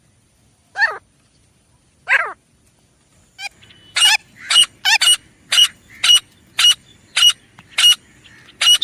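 Grey francolin (teetar) calling: two separate calls falling in pitch, then a fast run of sharp repeated notes, about two a second.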